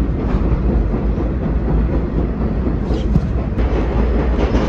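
Subway train running along the track: a steady, loud rumble with faint wheel clicks.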